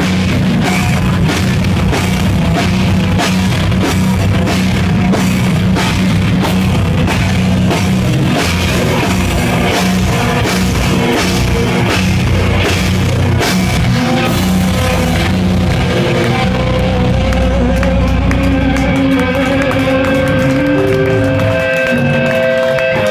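Live rock band playing loud, with drum kit and guitars. About fifteen seconds in the drumming stops and the guitars ring on with long held notes.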